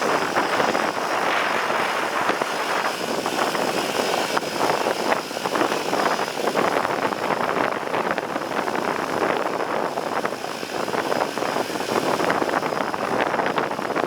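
Seaplane's propeller engines running steadily.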